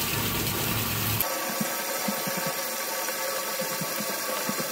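Tap water pouring at full flow from a faucet into a stainless steel utility sink as it fills: a steady rush and splash of water.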